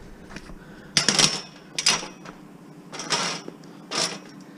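Metal-tube folding cot frame being folded down, its tubes and hinges clattering in four short bursts about a second apart.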